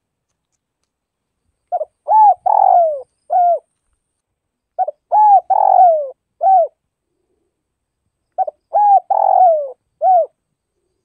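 Spotted dove calling: its song phrase is heard three times, starting about two seconds in and about three seconds apart. Each phrase runs a couple of short notes, a longer falling coo, and a short closing note.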